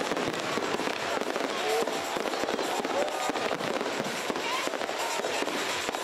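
Fireworks display: many aerial shells bursting and crackling at once in a dense, unbroken barrage.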